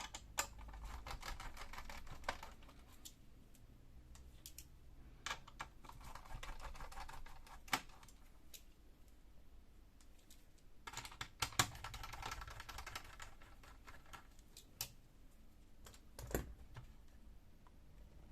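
Screwdriver backing out three small screws holding a laptop's hard drive: three spells of fast, light clicking, each about two seconds long, with a few sharp single clicks between them.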